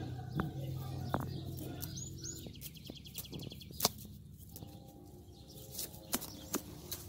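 Small birds calling in the background: two short chirps about two seconds in, followed by a quick, evenly pulsed trill lasting about a second. Beneath them is a faint low hum that fades after the first few seconds, and scattered sharp clicks, the loudest a little before the middle.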